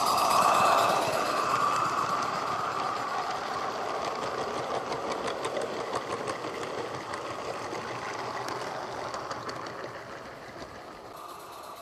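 Garden-scale model steam locomotive and its coaches running past on the track, loudest as the engine goes by about a second in, then the coach wheels clicking over the rail joints and fading as the train moves away.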